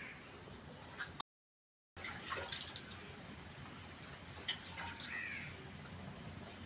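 Milk squirting in spurts from a cow's teats into a metal pot during hand milking, with a few sharp splashes. A bird gives one short call about five seconds in. The sound drops out completely for a moment about a second in.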